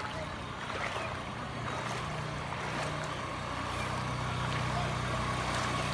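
Small motorcycle engine running at low speed through floodwater, getting steadily louder as it comes closer, over the wash of the water it pushes aside.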